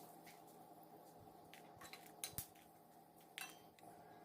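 Near silence, with a few faint clinks and scrapes of a utensil against an iron pan as red chilies fry in oil.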